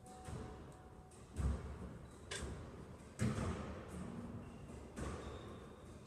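Squash rally: a squash ball struck hard four times, about a second apart, cracking off racket and walls and echoing around the court, with brief high squeaks of court shoes on the floor.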